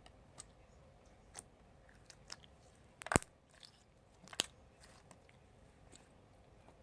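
Scattered small clicks and crackles of clear glitter slime and its plastic tub being handled, with two louder clicks about three and four and a half seconds in.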